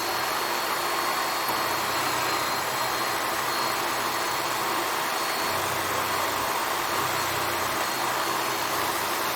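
Homemade wood lathe running at a steady speed with the workpiece spinning freely, a constant motor whir with a faint hum. It is a test spin to check whether the piece turns true or wobbles.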